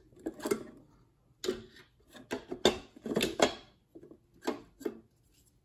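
Plastic hopper and grind-adjustment collar of a Rancilio Rocky coffee grinder being turned by hand, giving short, irregular bursts of clicking and scraping as it is worked round toward the zero grind point.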